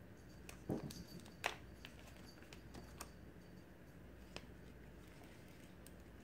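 Quiet room hum with a handful of light clicks and taps. Several come in the first three seconds, the loudest about a second and a half in, and one more comes past the four-second mark.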